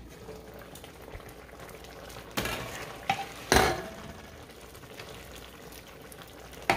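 Pot of lentil soup simmering while a nylon spoon stirs it, with a few louder scrapes and knocks of the spoon against the pot around the middle. A lid clinks once at the very start as it is lifted off.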